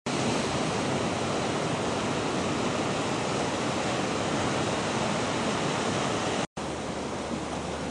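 Steady rush of ocean surf, breaking waves, that cuts out for a moment about six and a half seconds in.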